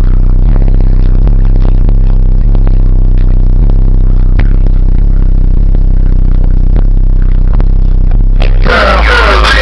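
Sundown Audio SA-12 subwoofer, driven by a SAZ-1500D amplifier, playing deep bass notes from a song at very high volume inside a truck cab. The recording is overloaded and distorted, with a steady beat pulsing through the low notes. Near the end the sound changes abruptly to a louder, brighter rush over a deep rumble.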